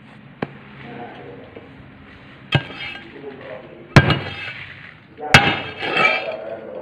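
Hammer blows on the steel pressing plate of a manual paving-block mould, compacting the concrete mix: three sharp metallic clanks about a second and a half apart, each ringing briefly, with a lighter knock near the start.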